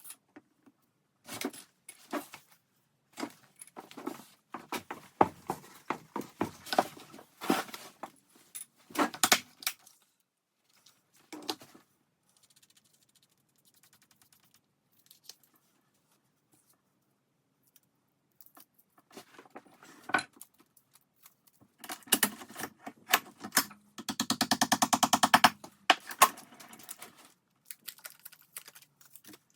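Small tools and parts being handled on a wooden workbench: irregular clicks, taps and short scrapes. There is a quiet spell in the middle and a fast, even rattle near the end.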